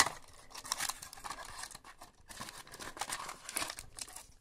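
Packaging being torn open and crinkled by hand, in irregular crackly rustles with a short lull in the middle.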